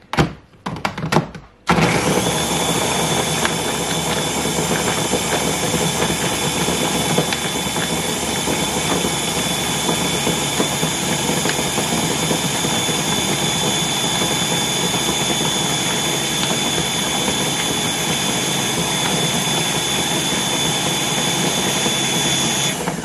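Small electric mini blender with the motor head on top of the jar, running steadily with a constant high whine as it blends greens, berries and milk into a smoothie. A few plastic knocks come first as the motor head is seated, the motor starts about two seconds in, and it cuts off just before the end.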